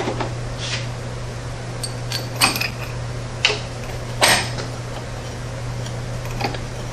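Steel pieces of a bearing puller kit clinking and knocking as they are handled and fitted onto an ATV wheel hub: about seven separate metallic clinks, the loudest a little after four seconds in, over a steady low hum.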